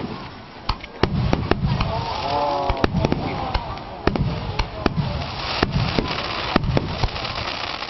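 Aerial fireworks shells bursting in quick succession: sharp bangs at irregular spacing, about two a second, over a continuous low rumble.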